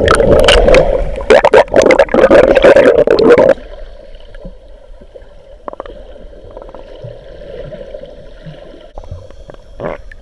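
Loud splashing and bubbling around an underwater action camera as a snorkeler in a life vest thrashes under the surface. About three and a half seconds in it cuts off abruptly to a quiet, muffled underwater background with a faint steady hum and a few soft clicks.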